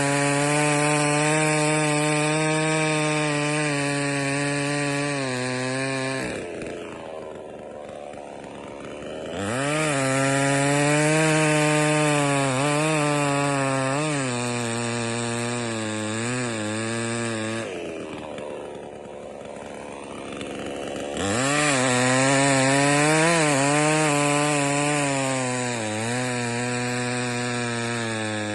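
JONSER BS5800 two-stroke petrol chainsaw revved to full throttle three times, dropping back to idle twice for a few seconds in between. In the middle run the engine pitch sags and wavers, as it does when the chain is loaded in a cut through wood.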